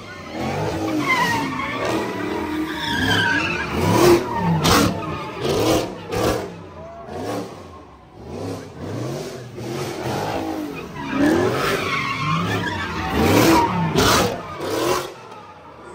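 Car drifting: engine revving up and down while the tires squeal, in two long surges with a brief easing in the middle.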